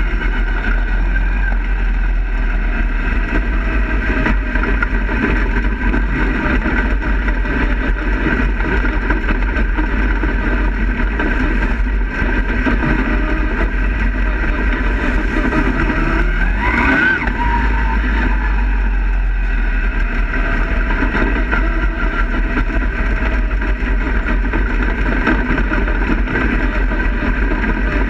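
Dirt-track race car's engine running loudly, heard from inside the cockpit, with steady road and wind noise. About 17 seconds in, one quick rising sweep in pitch cuts through.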